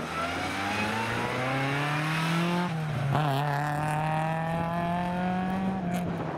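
A Toyota Yaris rally car's engine accelerating hard out of a corner and past, its note climbing steadily, dropping about three seconds in, then climbing again.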